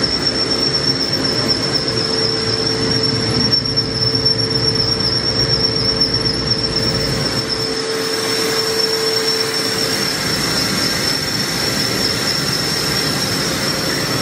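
Okuma Millac 800VH five-axis machining center running: a steady mechanical noise with a constant high-pitched whine, and a lower steady tone that stops about ten seconds in.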